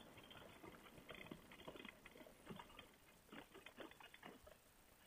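Near silence, with faint scattered crackles and ticks.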